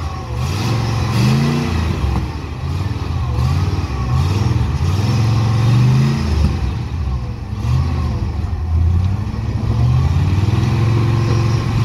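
Small-block V8 in a Willys M38A1 Jeep revving up and falling back again and again, working under load as the Jeep crawls up a steep rock ledge.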